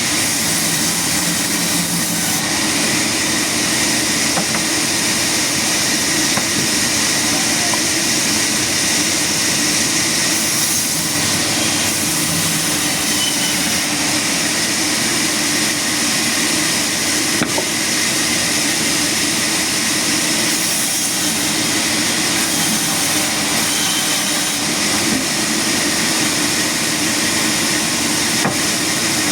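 Sawmill saw machinery running steadily: a constant loud mechanical noise with a strong hiss, unchanging throughout.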